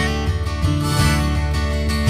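Acoustic guitar strumming chords in an instrumental break of a folk song, with no singing.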